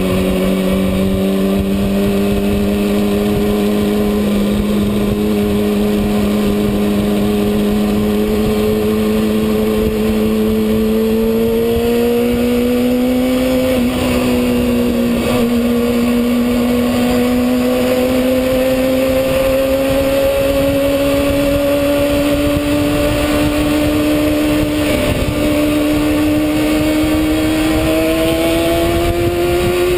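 Kawasaki ZX-6R inline-four engine running hard at high revs over a steady rushing noise, its note climbing slowly, with a brief dip twice and a sharp drop in pitch at the very end.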